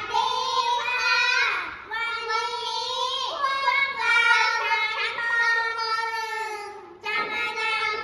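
Three young children singing together in unison, in long held phrases with short breaks between them.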